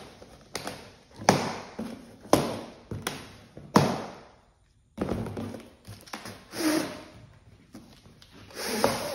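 Scissors cutting plastic strapping bands on a cardboard shipping box, a series of sharp snaps and slaps in the first few seconds as the straps are cut and spring loose against the cardboard. Then rustling and scraping as the loose strapping is pulled off the box.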